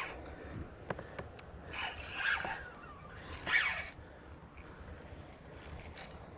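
Short mechanical ratcheting rasps, three in the first four seconds, the loudest about three and a half seconds in.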